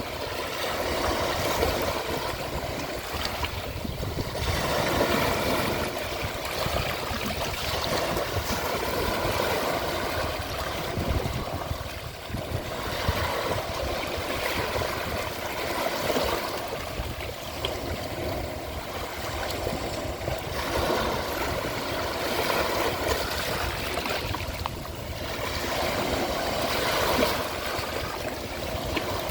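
Ocean waves washing onto a shore, a steady rush of surf that swells and eases every few seconds.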